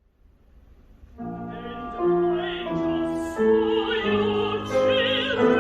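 Operatic contralto singing with instrumental accompaniment; the music comes in about a second in, after a faint low hum.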